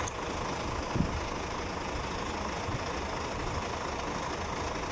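Truck engine idling steadily, with a single short knock about a second in.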